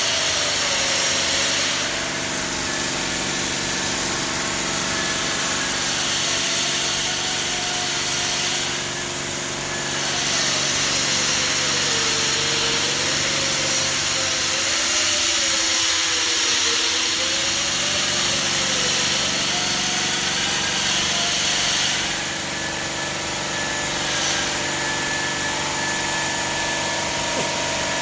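Denver 5-axis CNC bridge saw cutting granite: a steady, loud machine noise with a whine that drifts up and down in pitch as the blade works along the curve.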